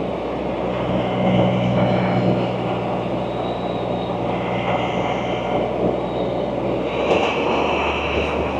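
Can-Am Spyder three-wheeled motorcycle under way, its engine running steadily beneath wind and road noise. About seven seconds in, the engine note changes and settles lower.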